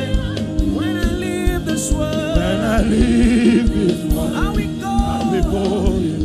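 Gospel worship music: a congregation singing together over a band with a steady low bass and a regular drum beat.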